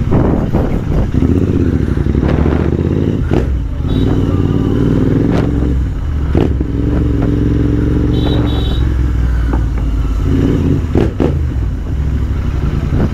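Royal Enfield Interceptor 650's parallel-twin engine running through an aftermarket AWM exhaust while the bike is ridden, a steady deep drone, with a few sharp clicks over it.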